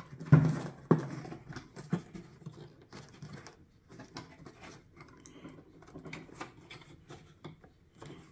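Hands handling a plastic car headlight unit: scattered light clicks, knocks and scrapes of plastic parts, a few louder knocks in the first second.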